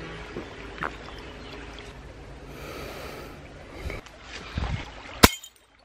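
A man chugging beer from a glass bottle, breathing hard through his nose between gulps. Some rustling movement follows, then a single sharp click near the end.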